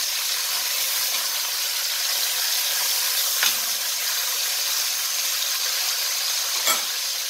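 Beef short ribs sizzling steadily in hot oil as they sear in an enameled cast-iron Dutch oven. Metal tongs give two sharp clicks, about three and a half seconds in and near the end.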